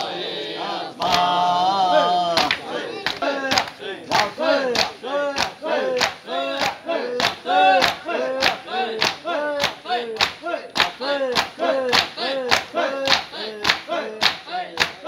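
Men performing matam: open palms slapping chests in unison, about two sharp slaps a second, with a crowd of male voices chanting in time between the slaps.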